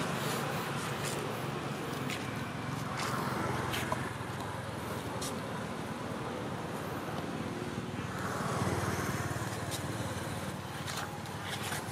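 Steady road traffic noise from passing vehicles, swelling slightly about three-quarters of the way in, with a few faint clicks.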